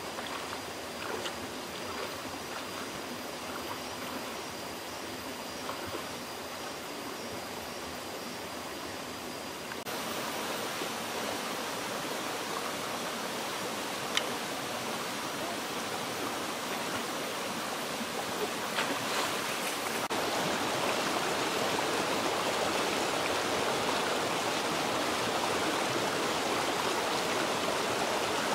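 Shallow rocky stream running steadily, with a few splashes from someone wading through it. About two-thirds of the way in the rushing gets louder, as water pours over a small cascade between boulders.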